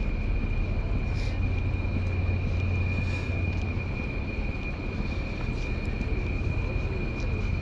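Steady low rumble of wind buffeting the camera's microphone outdoors, with a constant thin high-pitched whine over it and a couple of faint ticks.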